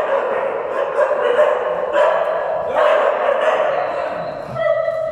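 Dogs barking and yipping, in long drawn-out cries that follow one another with brief breaks.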